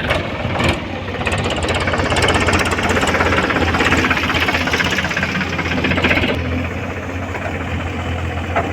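Large diesel engine running, with a louder rapid clatter from about a second in until about six seconds in, after which the engine carries on more quietly.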